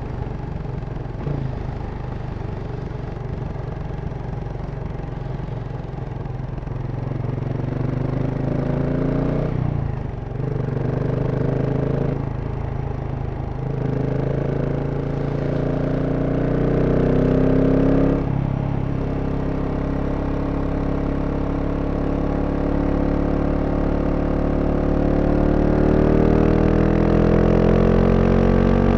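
2023 GasGas SM 700's single-cylinder engine through its stock exhaust, running steadily at first, then pulling through the gears: the pitch climbs and briefly drops at three shifts in the middle, then rises slowly and steadily to the end.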